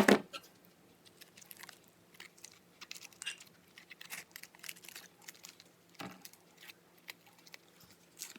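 Craft materials being handled and set down: a sharp knock at the start, then scattered small clicks and crackles, and another soft knock about six seconds in.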